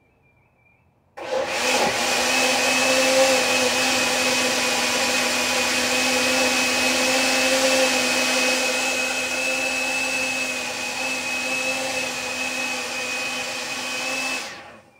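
Countertop blender running on its puree setting, chopping a watery mix of onion, garlic and hot pepper. A steady motor whine and liquid churning start about a second in and stop shortly before the end.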